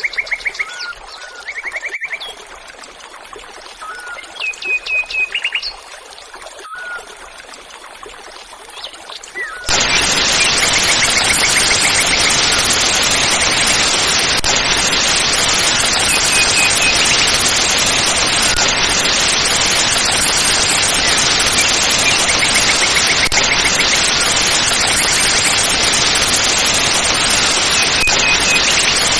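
Birds chirping in repeated short trills. About a third of the way in, a loud, steady rush of falling water from a waterfall cuts in suddenly and covers them.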